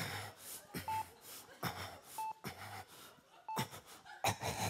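Hospital patient-monitor beep, a short electronic tone repeating evenly about every 1.3 seconds, three times, with a few short knocks and rustles between the beeps.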